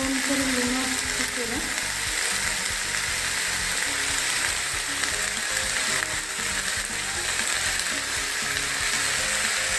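Flat bean and potato pieces sizzling steadily in hot oil in a metal kadai.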